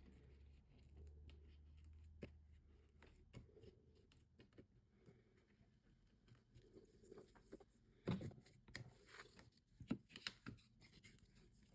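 Quiet handling of paper and cardstock during card making: soft taps and rustles. A few sharper sounds come at about eight and ten seconds in, as foam dimensionals and a card layer are handled and pressed down.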